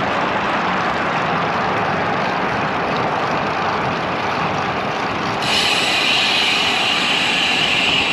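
Steady rushing wind and road noise from riding a road bike along a highway. A steady high hiss joins abruptly about five seconds in.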